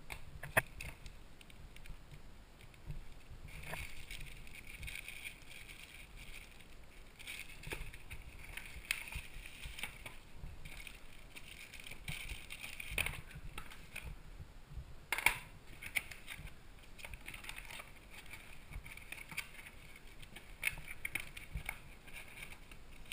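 Packaging being handled in a cardboard box: rustling and crinkling of cardboard inserts, bubble wrap and plastic bags in uneven stretches, with scattered sharp clicks and knocks, the loudest about 15 seconds in.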